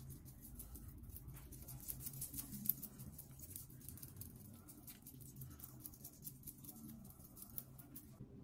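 Faint soft rubbing and fine crackling of hands massaging a facial cleanser over wet skin, over a low steady room hum. The crackling stops just before the end.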